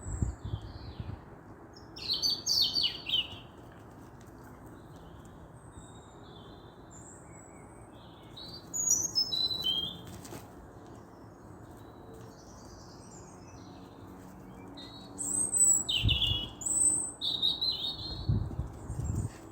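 Small birds chirping and trilling in short spells over a faint steady hiss, with brief low rumbles near the start and again near the end.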